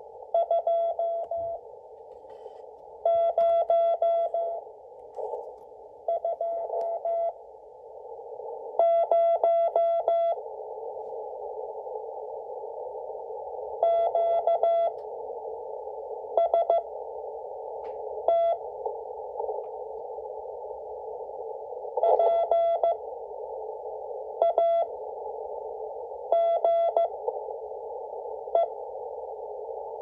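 W1AW's Morse code practice on 40 metres, received on an Icom IC-718 HF transceiver in CW mode: a single steady beep keyed out at 5 words per minute, each letter sent quickly with long pauses between letters. Steady receiver hiss lies under the beeps and grows louder about eight seconds in.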